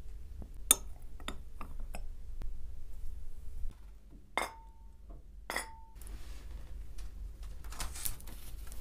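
Small sharp clicks while a torch lighter burns incense powder in a ceramic censer. Then two ringing clinks as a metal incense burner is set down into a ceramic bowl, followed by cloth rustling as fabric is draped over it.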